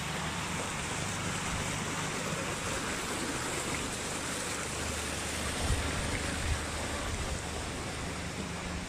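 Steady rushing outdoor noise with a low rumble underneath, broken by two faint knocks a little past the middle.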